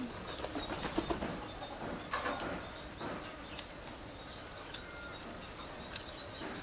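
Hands pulling apart a roast chicken: faint crackling and tearing of skin and meat, busiest in the first couple of seconds, then a few sharp ticks. Birds call in the background.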